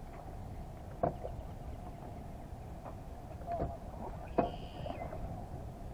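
Water and wind noise around a fishing kayak while a trout is played on a fly rod, with three short knocks, about a second in, near three and a half seconds and near four and a half seconds, followed by a brief high tone.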